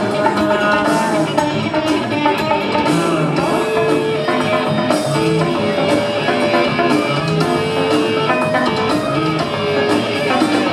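Rock band playing live on electric bass, electric guitar and drum kit, a steady, loud instrumental passage with no singing.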